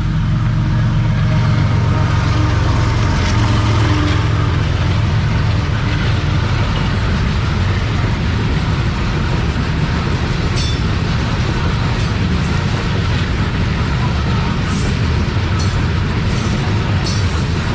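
Diesel train running with a steady, loud low engine rumble, with a few faint high clicks in the second half.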